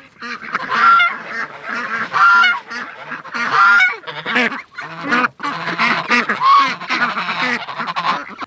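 A mixed flock of geese and ducks calling loudly over one another, mostly goose honks with duck calls among them, excited at feeding time.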